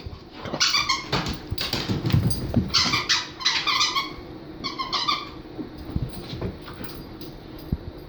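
A dog whining: four short, high, wavering cries, with lower rough noises in between.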